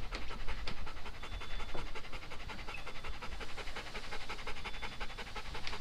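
Golden retriever panting fast and evenly, open-mouthed with tongue out: panting from excitement.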